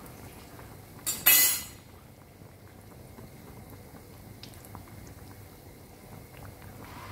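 A bread pakora (bread slice coated in daal batter) deep-frying in hot oil in a steel pan: steady sizzling with small crackles, and a brief loud burst of hissing about a second in.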